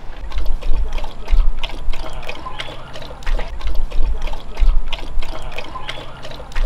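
A German Shepherd-type dog lapping water from a plastic tub, splashing with quick laps about three a second.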